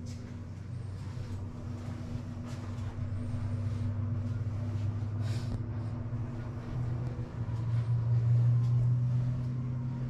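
Steady low mechanical hum of room air conditioning running, growing louder in the second half, with a few faint rustles and clicks.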